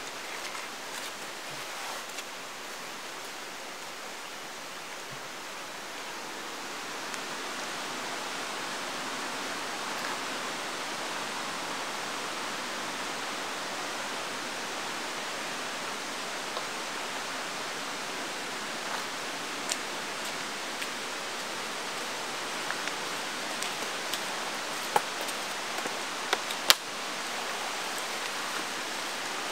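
Steady rushing of a mountain stream. Several sharp clicks and knocks near the end come from camping gear being handled.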